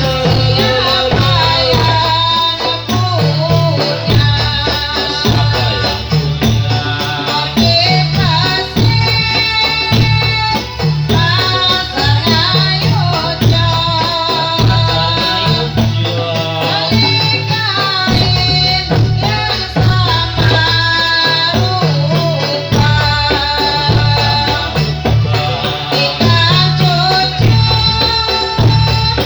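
Music for a Javanese dolalak folk dance: a singing voice over a steady repeating drum beat and jingling rattle-like percussion.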